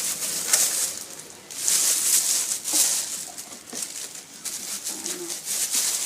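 Packaging rustling and crinkling in uneven bursts as an oven toaster is unwrapped and handled.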